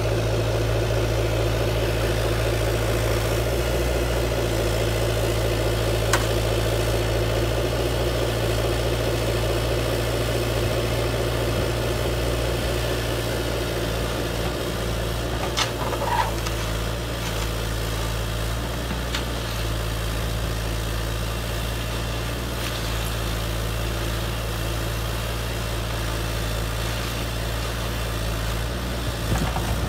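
Radio-controlled model excavator and dump truck running with a steady diesel-like engine idle drone. The drone's higher tones ease off about halfway through, and there are a few faint clicks and knocks in the middle.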